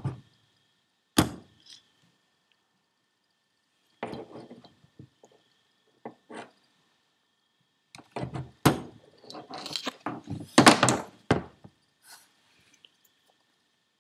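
Screwdriver prying and pushing a small steel C-clip into its groove inside a Holset HX40 turbo bearing housing: scattered metal clicks and knocks, then a dense run of scraping and clicking in the second half, with the loudest knocks near its end.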